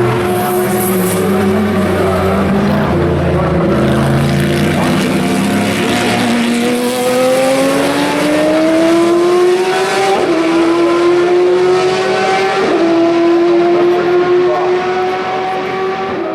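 Race car engine accelerating hard, its pitch climbing steadily and then dropping abruptly at upshifts about ten and twelve and a half seconds in.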